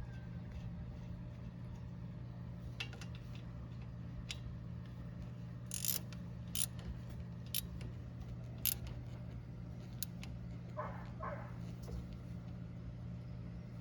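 Scattered sharp metal clicks and clinks of hand tools working on a brake caliper, irregular and about a second apart, over a steady low hum.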